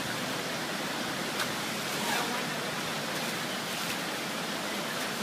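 Steady rushing of river water, with faint voices in the background.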